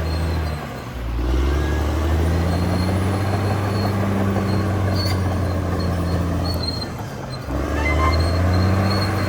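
CAT D6R XL bulldozer's diesel engine running under load, easing off briefly about a second in and again about seven seconds in before picking back up, with faint high squeaks over it.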